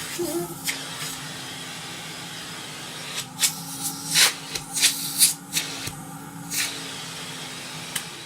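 Vintage Nilfisk GA70 canister vacuum cleaner running with a steady, fairly quiet hum, with several short hissing bursts of sucked air around the middle. The motor shuts off near the end.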